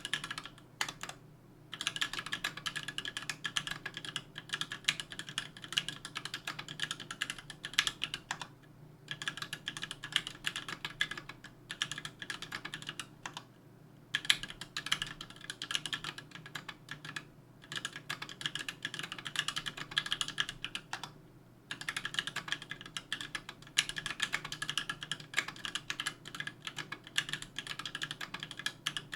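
Continuous typing on a 60% aluminium mechanical keyboard (KBDfans Tofu, aluminium plate) with JWK H1 78 g linear switches and GMK keycaps: rapid key clacks in runs of several seconds, with short pauses between runs.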